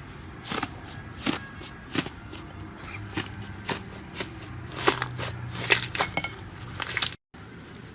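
Slime being squeezed and poked by hand, giving irregular sticky clicks, crackles and pops close to the microphone. The sound cuts out briefly near the end.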